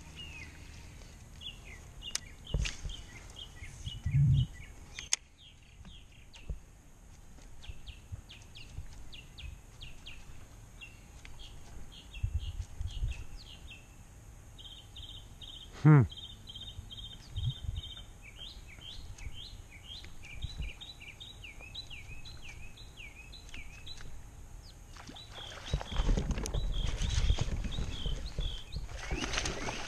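Songbirds chirping and singing in repeated short phrases, with a few knocks of gear against the kayak, one of them loud about halfway through. The last few seconds turn noisier, a louder rough rustling under the birdsong.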